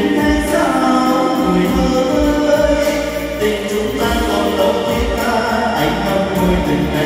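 Karaoke music played loud through a PA speaker system: a slow ballad melody over a bass beat, with a man singing into a microphone.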